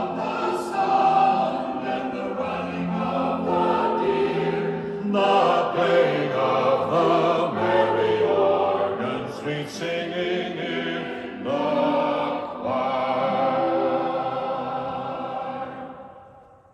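Choir singing a Christmas carol in sustained phrases, fading out near the end.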